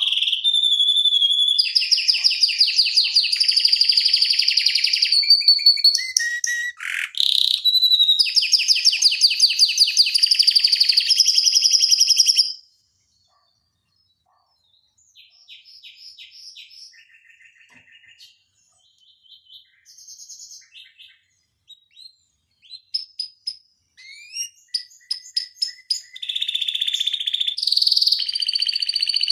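Domestic canary singing long, rapid rolling trills, one roll running straight into the next. About halfway through the song breaks off suddenly, comes back as softer, scattered short phrases, and builds again to loud rolls near the end.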